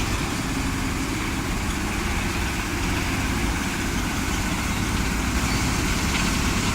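Trommel screen and sand washing plant running: a steady, heavy machinery drone with a low hum and a constant hiss over it.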